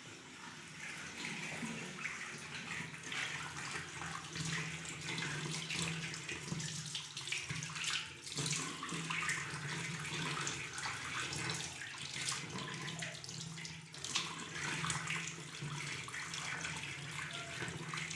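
Water running steadily from a tap, splashing, with a steady low hum underneath.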